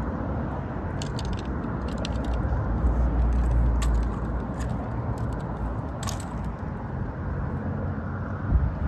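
Steady low outdoor rumble that swells for about a second around three seconds in, with a few faint clicks over it.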